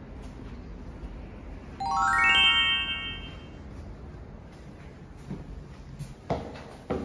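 A quick rising run of bright chime notes, each new note higher than the last, about two seconds in, ringing on for about a second. Near the end come a few knocking footsteps on the stairs.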